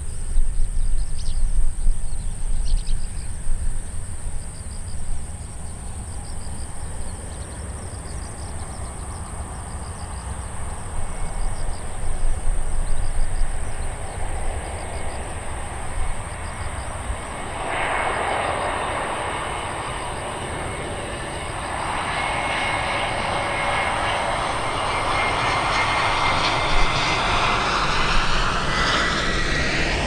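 Airbus A320neo airliner on final approach. Its jet engine noise swells from a little past halfway as it nears, and a thin high whine drops slightly in pitch near the end as it passes close by just before touchdown. Faint insect chirping is heard at first.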